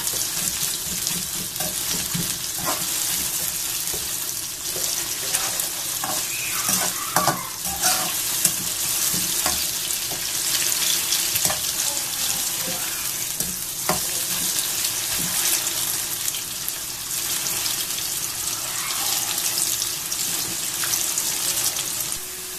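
Sliced onions sizzling steadily in about a cup of hot oil in a metal frying pan, with a spatula scraping and clicking against the pan as they are stirred. They are being fried down until they turn reddish-brown.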